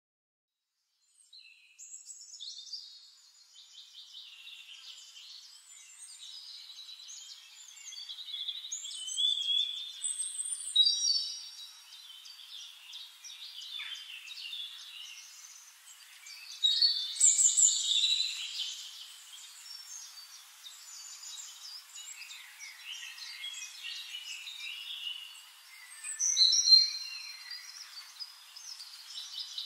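Several songbirds singing, with overlapping chirps, whistles and trills. It begins about a second in, and louder phrases stand out now and then.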